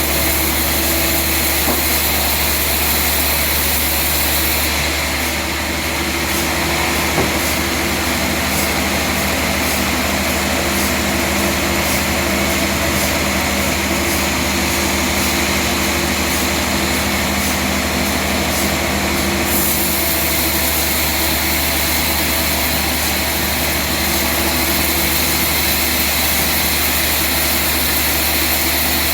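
Sawmill machinery running steadily, a continuous engine-like drone with a constant hum.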